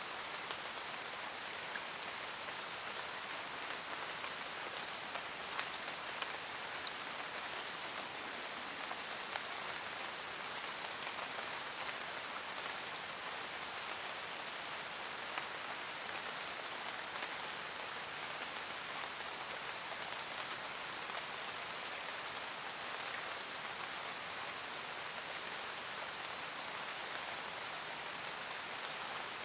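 Steady rain falling in a forest, an even hiss with many individual drops ticking on leaves and other surfaces.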